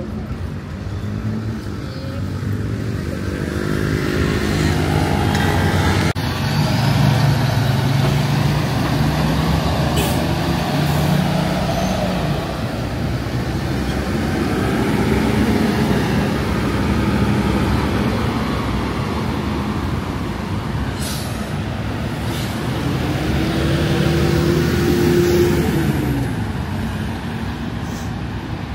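Motor vehicles passing close by on a busy city street, their engines rising and falling in pitch, with the loudest passes about a quarter of the way in and near the end.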